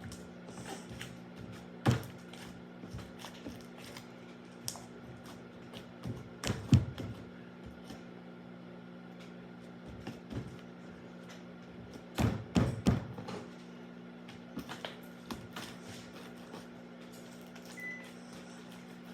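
Slime being stirred in a bowl: scattered knocks and scrapes of the utensil against the bowl, with a few louder clatter clusters, over a steady low hum.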